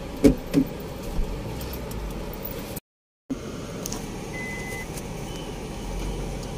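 Car interior noise with the engine running while the car is in reverse. There are two sharp knocks near the start and one short high beep about two-thirds of the way through, and the sound drops out completely for half a second just before the middle.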